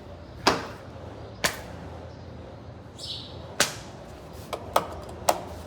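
Six sharp knocks at uneven spacing, two of them close together near the end, over a low steady hum, with a brief hiss about three seconds in.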